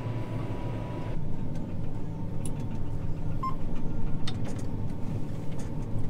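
Steady low hum of a John Deere machine's engine heard from inside the cab, its character changing about a second in, with a few faint clicks.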